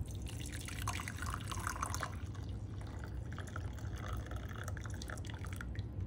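Hot water pouring from a coffee maker's carafe into a ceramic mug, a steady trickling stream that is busiest in the first couple of seconds.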